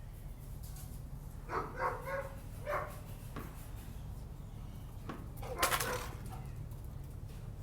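A dog barking: a cluster of short barks about a second and a half in, then one louder bark near six seconds, over a steady low rumble.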